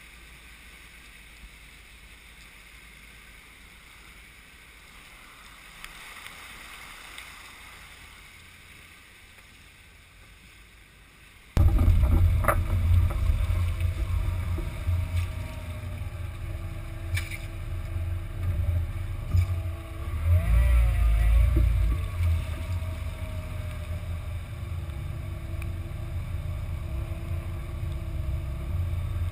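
A faint steady hiss, then after a sudden jump in level about a third of the way in, a loud low rumble of Jeep Wrangler JK engines running close to an outside-mounted microphone.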